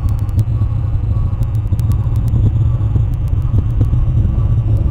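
Steady, loud low rumble with faint high ticks scattered through it.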